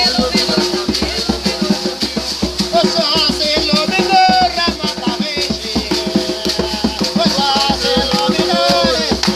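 Upbeat music with a fast, even beat and a shaker-like rattle under a melody.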